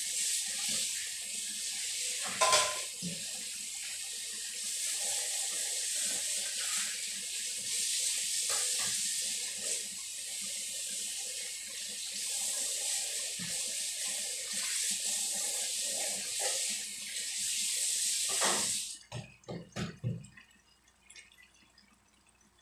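Kitchen faucet running into a stainless steel sink while dishes are rinsed under it, with occasional knocks of dishes against the sink, one louder clatter a couple of seconds in. The water shuts off about three-quarters of the way through, followed by a few dish knocks.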